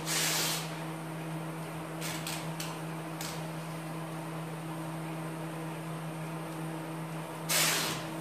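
Masking tape ripped off the roll twice in quick half-second tears, one at the start and one near the end, with a few light crackles of tape being pressed down between them. A steady low hum runs underneath.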